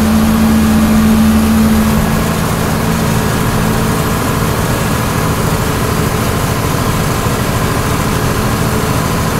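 John Deere 4430 tractor's six-cylinder diesel engine running steadily, heard from inside the cab. Its strongest hum eases slightly about two seconds in.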